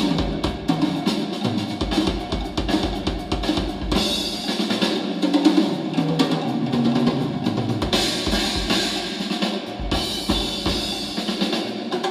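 Drum-heavy music with a deep kick-drum beat and cymbals, played loud through a JBL PRX735 powered PA speaker.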